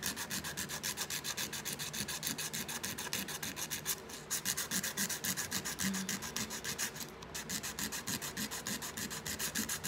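180-grit sandpaper rubbed by hand in quick back-and-forth strokes over a small embossed tin piece, several strokes a second, with brief pauses about four and seven seconds in.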